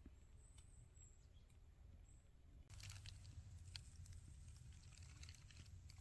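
Faint sound: a low steady rumble, then from about three seconds in a light crackle and rustle of dry leaves.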